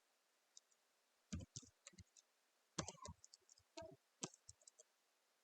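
Faint, scattered clicking of a computer mouse and keyboard, in small quick clusters.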